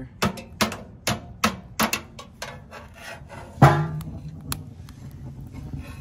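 Steel fireplace poker knocking against the latch and door of a stainless-steel vacuum-canister wood stove: five quick clinks in the first two seconds, then a louder ringing metal clang about three and a half seconds in as the door is worked open.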